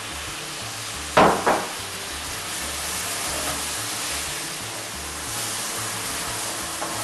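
Milk sizzling and steaming as it hits hot caramel in a pan and is stirred with a wooden spoon, over background music. Two sharp knocks come close together about a second in.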